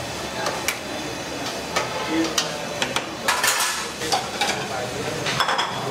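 A long-handled strainer clinking, knocking and scraping against a stainless-steel cooking pot as greens are scooped out. The short metal clinks come at irregular intervals over a steady hiss and are busiest a little past the middle.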